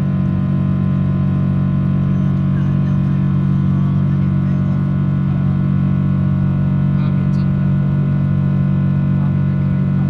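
Steady drone inside a Boeing 777-300 airliner cabin: constant engine and airflow noise, strongest in a low hum, with several steady tones above it and a couple of faint clicks about two-thirds of the way through.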